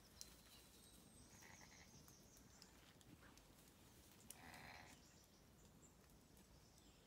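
Near silence with two faint, short, high bleats from a newborn lamb, one about a second and a half in and another about four and a half seconds in.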